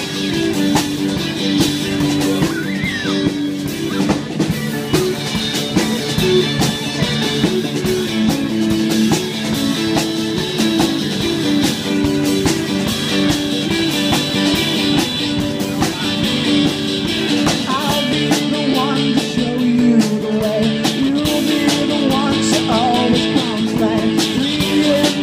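Rock-style music with guitar, drum kit and singing, a melody moving in steps over a steady beat.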